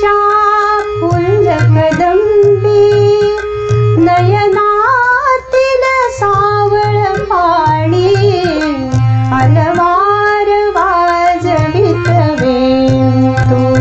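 A woman singing a Marathi song in a gliding melody over a regular percussion beat.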